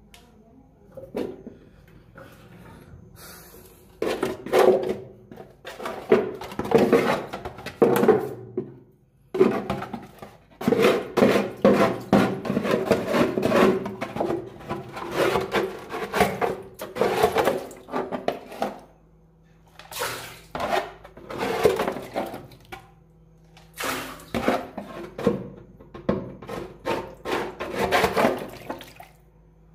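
Oily water in a boat's engine bilge being scrubbed and sloshed by hand: runs of quick, irregular splashing strokes broken by short pauses.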